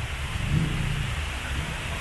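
A 4x4's engine running low and slow on an off-road trail, with a steady hiss over it.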